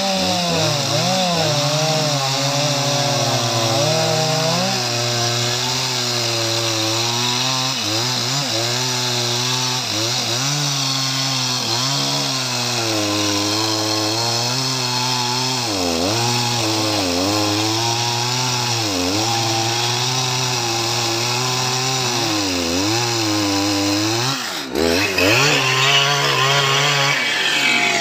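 Stihl MS 881 two-stroke chainsaw cutting through a mahogany log at full throttle, its engine pitch sagging and recovering again and again as the chain bites into the wood. Near the end a sharp click, after which a saw runs at higher, brighter revs.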